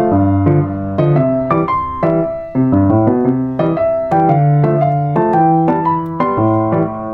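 Background music: a piano track playing sustained low notes with a melody above them.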